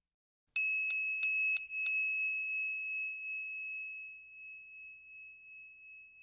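Bell sound effect: five quick dings, about three a second, then a single high tone ringing on and slowly fading away.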